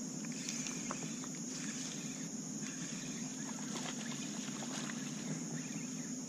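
Steady high-pitched insect buzz, like crickets, over a low steady hum, with faint scattered ticks.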